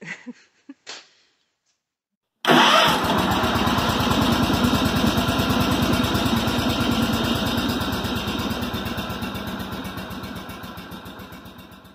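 A small garden tractor engine catches with a sudden burst and runs with an even, rapid firing beat, then slowly fades out over the last few seconds.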